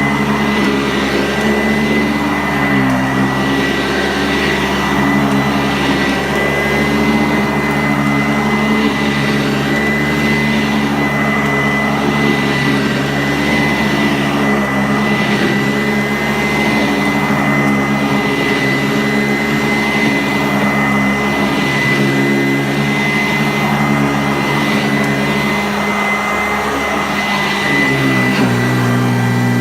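Sanitaire SC684 upright vacuum cleaner running steadily while being pushed over carpet, with a constant high motor whine and a low hum that shifts slightly in pitch now and then.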